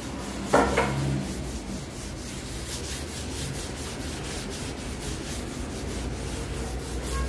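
Paper towel rubbing olive oil over a flat black metal griddle plate in quick repeated strokes, oiling the plate before the flatbread goes on. A brief louder sound stands out about half a second in.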